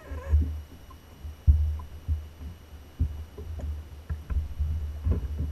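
Low rumble of wind on the microphone on an open boat deck, broken by several sharp thumps of feet and gear on the bass boat's deck as a largemouth bass is landed.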